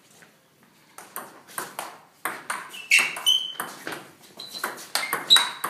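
Table tennis rally: the ball clicking sharply off the paddles and the table top, about two to three hits a second, starting about a second in.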